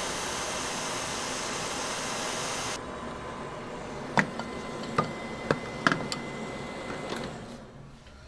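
Hot-air rework station blowing a steady hiss onto a laptop motherboard, cutting off abruptly about three seconds in. It is followed by a few light, sharp clicks of metal tools on the board.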